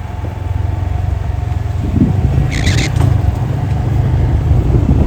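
Vehicle engine running on the move, with a steady low rumble, and a short high squeal about halfway through.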